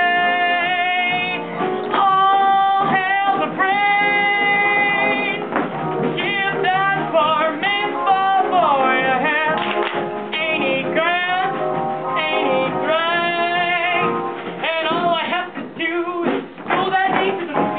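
Live musical-theatre number: singing over instrumental accompaniment, with notes held and sliding in pitch.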